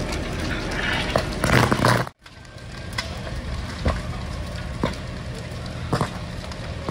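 A house burning fully involved: fire crackling with scattered sharp pops over a steady low rumble. The sound drops out for an instant about two seconds in.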